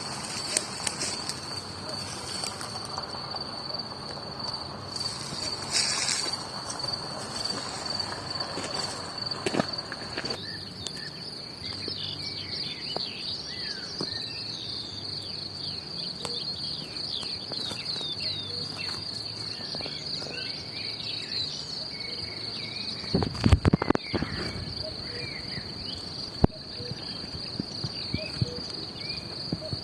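Crickets trilling in one steady, unbroken high note, with birds chirping in short quick calls over it through the middle. A few loud low thumps come about two-thirds of the way in.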